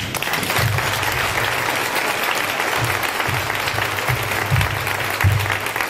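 Audience applauding, breaking out right as the talk ends with the speaker's thanks.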